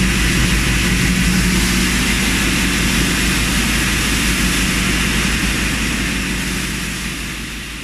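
Brush-handle making machine running with a steady mechanical drone and hum, fading gradually toward the end.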